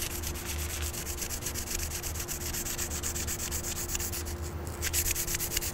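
400-grit sandpaper rubbed lightly back and forth along a motorcycle brake caliper pad pin, a soft steady scratching, cleaning rust and crud off the pin so the pads can slide freely.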